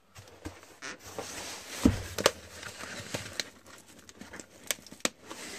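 Cardboard shipping box being handled and torn open: rustling and scraping of cardboard with several sharp knocks, the loudest about two seconds in.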